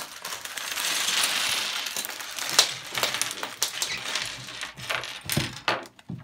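Plastic bag of Lego pieces crinkling as it is handled, then many small plastic bricks clattering and clicking onto a wooden tabletop as they are tipped out and spread.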